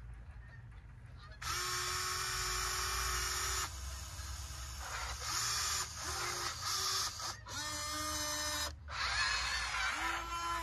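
A horn honking at one steady pitch: a long blast, several short toots, then another long blast.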